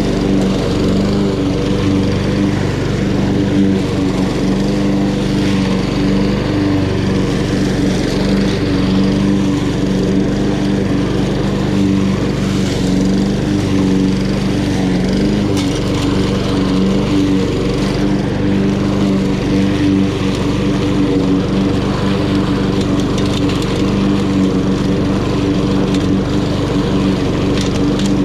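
Honda HRN216 lawn mower's GCV170 single-cylinder engine running steadily under load while cutting grass.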